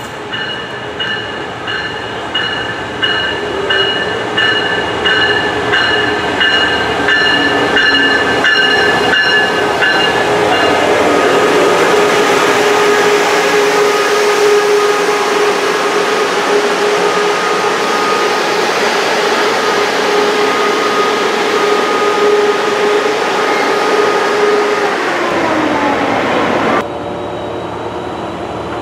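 Amtrak Pacific Surfliner train arriving and running past close by. A repeating high ringing tone sounds through the first ten seconds, then the rumble of the bi-level cars builds, with a steady hum that drops in pitch about 25 seconds in. The sound falls away abruptly near the end.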